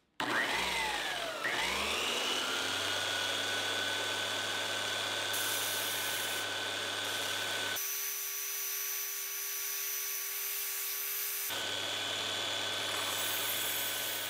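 Benchtop belt sander switched on, its motor spinning up with a rising whine over about two seconds, then running steadily while the tip of a steel kitchen knife is ground against the sanding belt to shape a new point. The tone changes for a few seconds in the middle.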